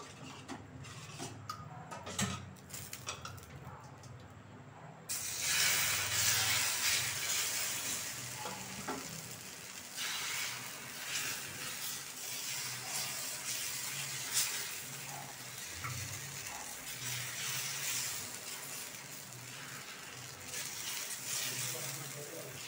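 Thin rava dosa batter sizzling on a hot, oiled dosa tawa as it is poured on from a ladle; the sizzle starts suddenly about five seconds in and carries on.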